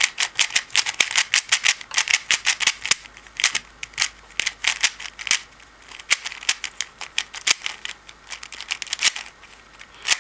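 A brand-new YJ Chilong 3x3 plastic speedcube being turned quickly by hand, its layers giving a fast, irregular run of sharp plastic clicks and clacks, several a second, as the faces snap into place and corners are cut.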